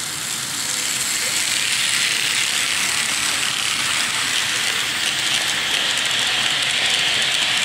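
Garden-railway model freight train running close past: a dense, even metallic clatter of many small wheels on the track, with the locomotives' motors and gearing, growing louder as the train goes by.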